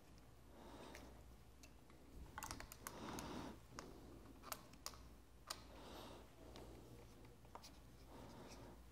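Faint, scattered clicks with soft rubbing: a 4 mm hex key and a metal mirror bracket knocking and scraping as the bracket is tightened onto a mobility scooter's handlebar.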